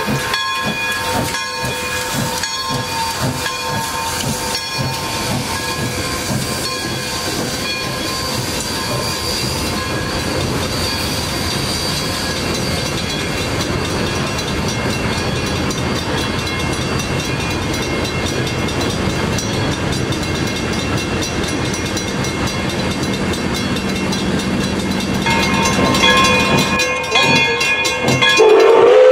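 Pere Marquette 1225's train of steel-wheeled cars rolling through a grade crossing, wheels clattering over the crossing, while steady ringing tones sound throughout the first half. Near the end, the 2-8-4 Berkshire's steam whistle starts up with a rising note.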